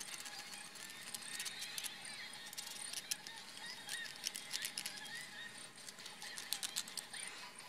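Small round file rasping on the edge of a hole in the cast-iron deck of a Chevy 3.1 litre V6 block, in short, irregular scraping strokes. The file is rounding off sharp edges so that they do not start stress cracks.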